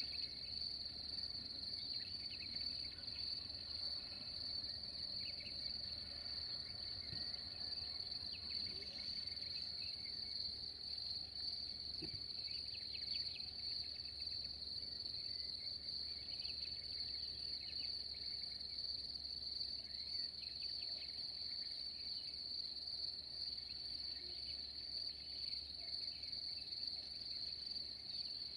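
Crickets singing in one steady, unbroken high trill.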